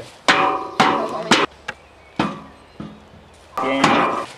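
Hammering: about half a dozen sharp strikes at uneven intervals, each leaving a brief ringing tone.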